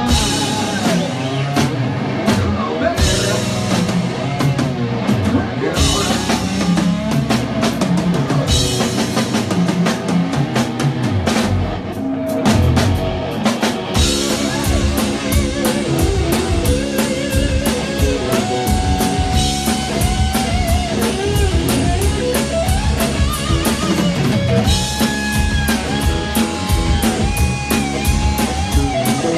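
Rock band playing live: electric guitar lines over a driving drum kit and bass, with no vocals.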